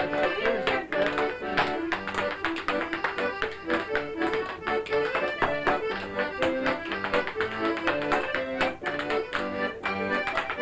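Piano accordion playing an Irish traditional dance tune, with the rapid, rhythmic taps of a step dancer's hard shoes on a hard floor.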